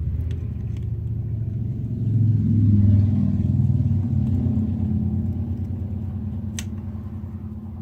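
A low engine rumble that swells to a peak about three seconds in and then slowly fades. A single sharp click comes near the end.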